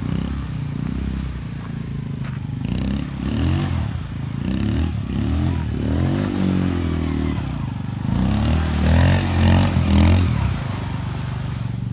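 Small quad ATV engine revving up and down as it tows a snow tube, loudest for a couple of seconds near the end as it comes close.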